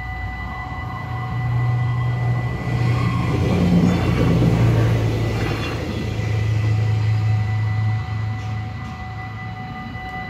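Stadler GTW diesel multiple unit passing over a level crossing: diesel engine and rail noise swell to loudest about four seconds in, then ease off. The crossing bells keep ringing as a steady high tone throughout.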